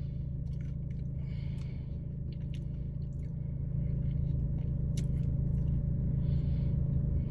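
Chewing and crunching on a breaded fried chicken piece, with scattered faint crackles as the crust is bitten and then pulled apart by hand. Under it is the steady low hum of the car's engine left running.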